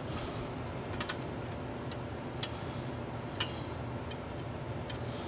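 A few sharp, irregular light clicks of the floppy drive and its sheet-metal mounting bracket being handled and fitted together, two close together about a second in and more later, over a steady low background hum.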